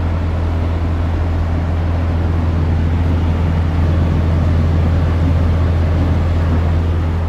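Semi truck's diesel engine idling: a steady low hum that holds unchanged throughout.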